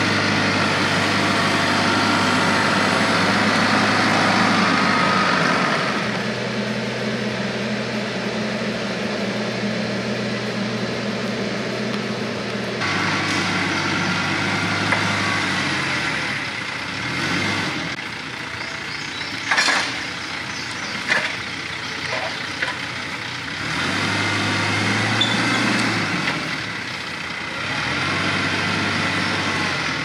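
TYM TX47 compact tractor's diesel engine running, its level and pitch shifting every few seconds as it handles logs with the front-loader grapple. A few sharp knocks come about two-thirds of the way through.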